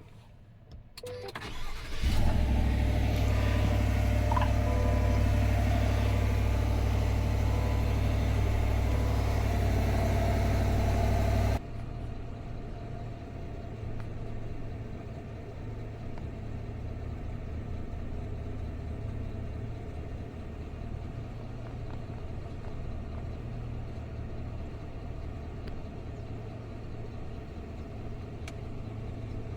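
Chevrolet Silverado 1500 engine starting about two seconds in and then running steadily at idle. About twelve seconds in the level drops suddenly, and a quieter steady engine sound carries on.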